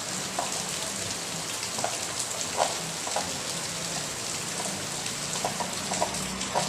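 Steady rain falling, a constant hiss with single drops plinking onto a surface about once a second, irregularly.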